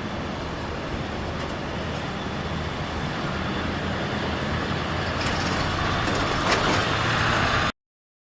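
Freight train rolling past: a steady rumble of wheels on rail that grows louder, with a couple of sharp clicks, then cuts off abruptly near the end.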